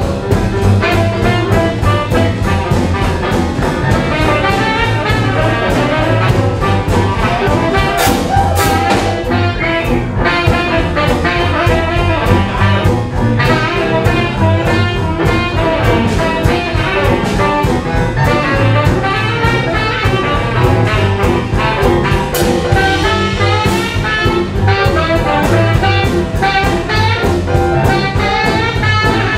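Live jump-blues band playing, with a tenor saxophone taking the lead in quick melodic runs over drums and a steady bass line.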